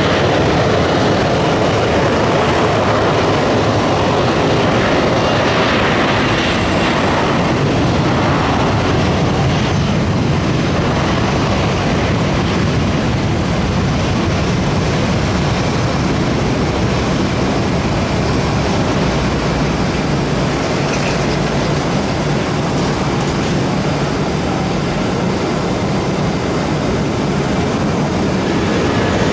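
Jet airliner engines running, a steady loud noise that holds level throughout.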